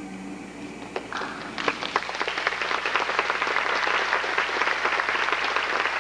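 Audience applauding: a few scattered claps about a second in, swelling quickly into steady applause.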